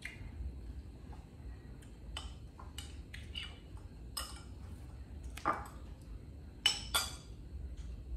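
Scattered clinks of a spoon against a bowl, the loudest two coming close together about two-thirds of the way through.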